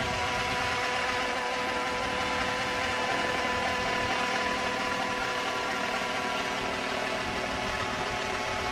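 Gas engine of a large radio-controlled model airplane running at a steady pitch.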